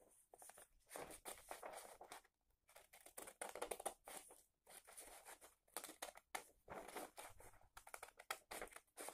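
Scissors cutting through a sheet of A4 paper: a faint, irregular run of short snips.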